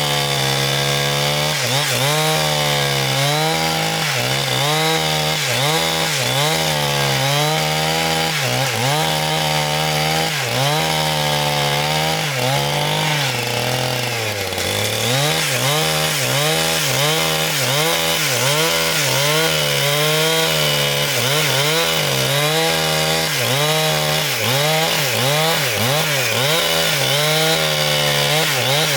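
Power saw running under load while cutting a large log into boards. Its pitch wavers up and down continuously and sags briefly about halfway through before recovering.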